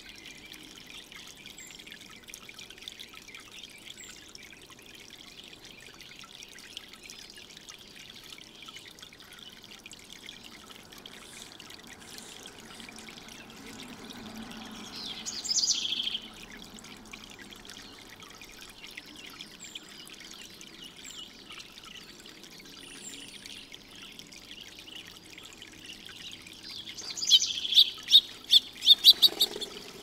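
Water trickling and pattering steadily from a two-tier birdbath fountain. About halfway through comes a brief burst of high bird chirps, and near the end a quick run of about seven louder, sharp chirps.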